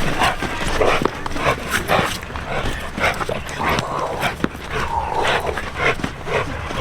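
A dog barking in short, repeated barks throughout.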